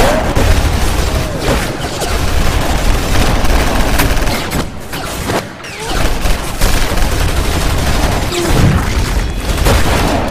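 Many guns firing at once in a continuous, loud barrage of overlapping shots.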